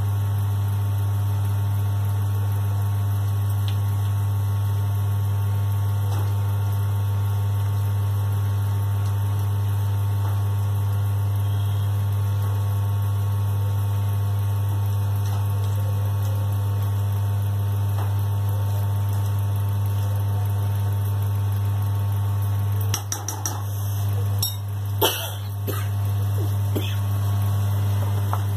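Loud, steady electrical mains hum, a low buzz with fainter higher overtones. About three-quarters of the way through it dips and a few sharp knocks and clatters sound.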